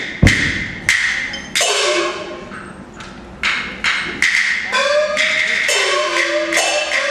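Peking opera percussion: sharp wooden clapper and drum strikes, sparse at first, then coming faster, with ringing gong strokes that drop in pitch joining from about two-thirds of the way in.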